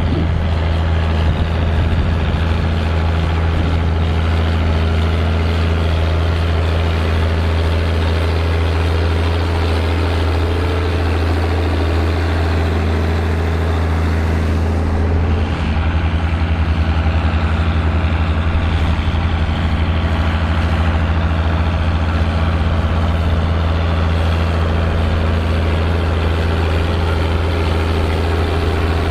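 John Deere tractor engine running steadily at a constant low pitch, as when pulling a plough, with a slight change in its note about halfway through.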